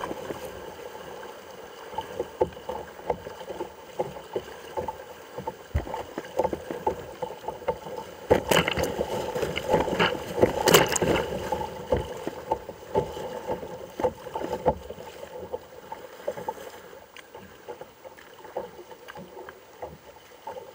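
River rapids rushing and splashing against the hull of a kayak, close to the water, with many short slaps of water. It gets choppier and louder about halfway through as the kayak crosses a rapid, then settles to a gentler burble near the end as the water calms.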